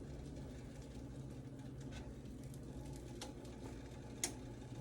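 Kitchen room tone: a steady low hum, with a few faint, short clicks about two, three and four seconds in, the last one the loudest.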